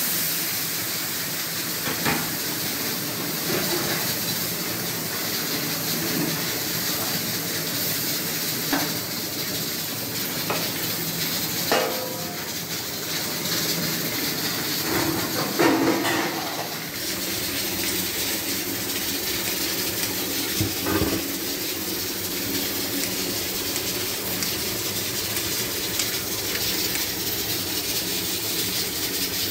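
Steady hiss of frying in a large aluminium cooking pot, with a few knocks and clanks of a metal ladle against the pot.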